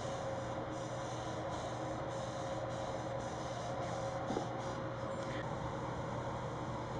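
A cloth rag rubbing red stain onto a wooden guitar top in repeated wiping strokes, over a steady background hum.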